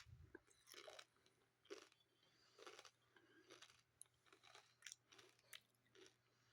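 Faint chewing of crunchy tortilla chips, a short crunch roughly once a second.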